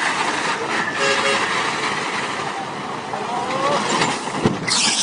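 Heavy tanker truck driving, its engine and road noise heard as a steady dense rush. A short sharp knock comes near the end.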